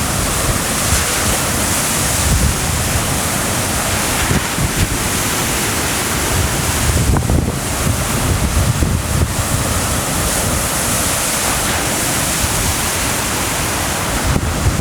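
Wind buffeting the microphone with a low, gusty rumble over a steady wash of waves on the lake shore.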